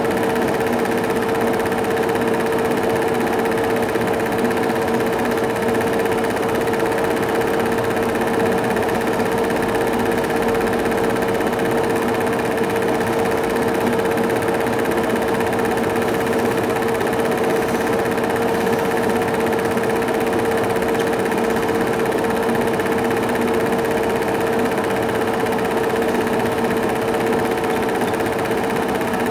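Film projector running: a steady mechanical whirr and clatter with an even hum, unchanged by the cuts in the picture.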